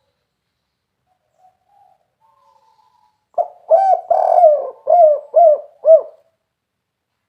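Spotted dove (tekukur) cooing: a phrase of about six rounded coos starts about three and a half seconds in and lasts roughly three seconds, the 'kuk 3' song type, with fainter calls before it.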